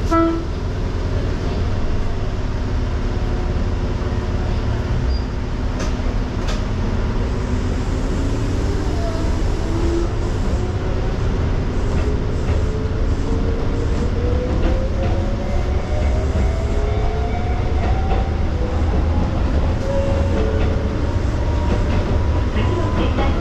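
Electric train running, heard from inside the car: a steady rumble of wheels on rail with a few clicks, and a motor whine that rises in pitch from about six seconds in until near the end as the train gathers speed.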